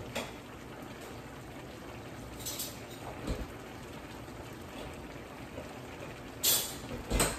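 Chicken, squash and coconut-milk sauce simmering uncovered in a pan on the stove, a steady low bubbling. A few short knocks cut through it, the loudest two near the end.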